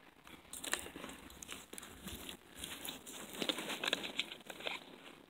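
Loose dry dirt and rock fragments crunching, crackling and scraping in an irregular run of small clicks, busiest about a second in and again from about three to five seconds in.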